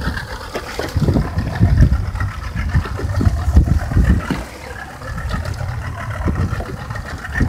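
Yamaha 75 hp outboard motor idling, with wind buffeting the microphone in irregular low gusts.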